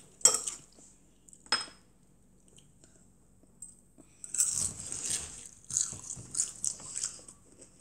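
A child chewing a mouthful of food noisily with his mouth open, close to the microphone, in a dense run of wet mouth noises from about halfway through. Near the start, two sharp clicks of metal chopsticks against a ceramic bowl.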